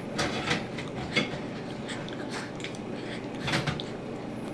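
A baby's short breathy sounds and mouth noises while being spoon-fed puree, a few of them scattered through a few seconds.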